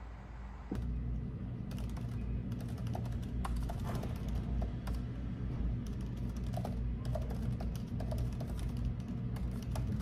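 Typing on a laptop keyboard: a steady run of quick, light key clicks, starting about a second and a half in.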